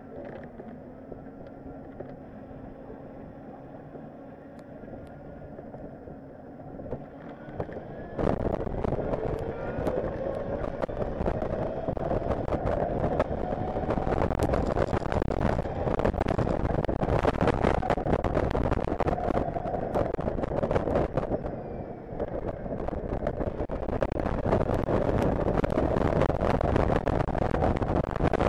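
Zongshen electric race motorcycle riding off, quiet at first. From about eight seconds in, loud wind and road noise on the bike-mounted microphone, with the electric drive's whine rising and falling in pitch as the bike speeds up.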